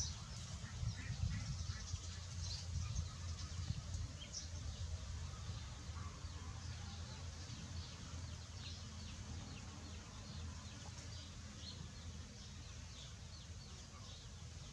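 Small birds chirping in the background: many short, high chirps scattered throughout. A low rumble underneath is strongest in the first few seconds and then eases off.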